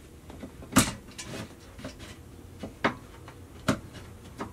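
Clamp ring being worked around the base of a VacuFlush toilet: a few sharp clicks and knocks as the ring parts are handled and slid into place, the loudest a little under a second in, with fainter taps and rubbing between.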